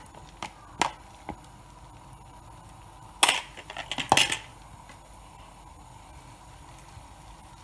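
Kitchenware clinking against a frying pan as beaten egg is poured into hot oil. There are a few light clicks, then two louder clatters about three and four seconds in, followed by a faint steady sizzle.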